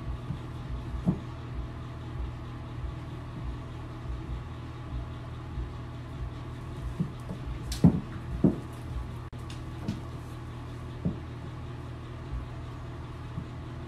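A steady low mechanical hum, like a fan or household appliance running, with scattered soft knocks and thumps; the loudest two come about eight seconds in, half a second apart.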